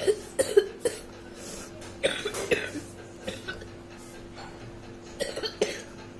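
A person coughing in three short fits of a few coughs each: one at the start, one about two seconds in and one near the end, over a faint steady hum.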